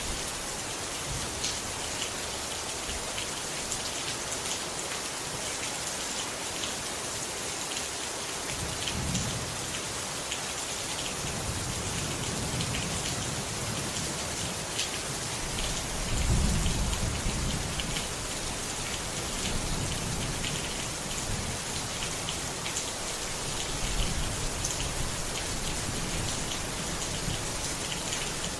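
Steady rain falling, with fine drop ticks through it. Low rumbles of thunder come in about eight seconds in; the loudest is around sixteen seconds in, and another comes near twenty-four seconds.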